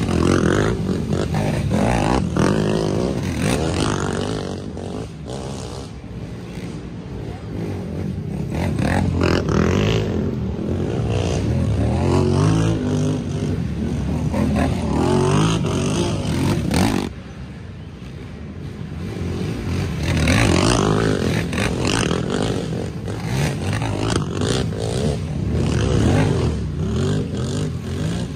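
Racing ATV engines revving hard and rising and falling in repeated waves as the quads pass. The sound drops off suddenly about two thirds of the way through, then builds again as more come through.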